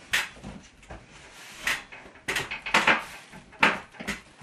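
Wooden tongue-and-groove flooring board being pushed and worked into its joint overhead: several sharp wooden knocks and clatters at uneven intervals as the long board resists seating in the groove.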